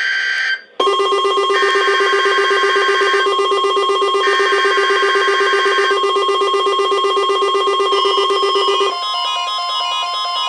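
Weather radio alert: buzzy digital data bursts of the SAME alert header, with a loud steady warning alarm tone and a pulsing alarm starting under them about a second in. Near the end the alarm changes to a stepping, tune-like pattern of tones, the steady tone still sounding.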